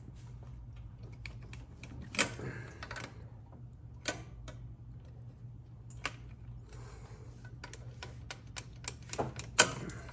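Scattered sharp clicks and knocks of hand tools and metal fittings while the turbocharger's coolant and oil lines are worked loose, with a quick cluster of them near the end, the loudest last. A steady low hum sits beneath.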